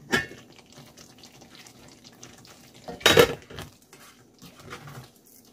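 A stainless steel cooking pot being handled: a knock of the metal lid at the start, then a spatula stirring thickened palabok sauce in the pot, with small scrapes and clicks and a louder clatter about three seconds in.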